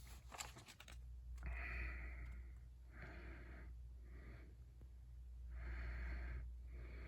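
A person breathing close to the microphone: about five long, audible breaths. A few light clicks of paper bills being handled come in the first second.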